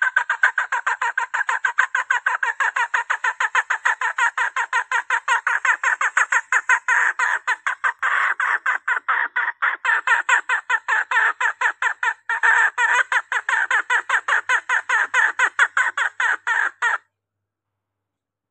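Female green junglefowl's rapid clucking call, about five short notes a second, repeated without a break and then cutting off suddenly near the end. It is a lure call used to draw in cock birds.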